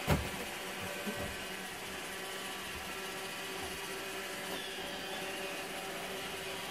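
An iRobot Roomba robot vacuum running, a steady whirring hum from its motors. A sharp thump right at the start and a smaller knock about a second in.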